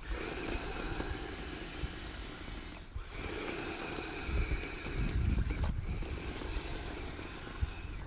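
Kyosho Blizzard radio-controlled tracked snow vehicle running, its drivetrain giving a steady high whine over a low rumble. The whine cuts out briefly twice, about 3 and about 6 seconds in, as the throttle is let off.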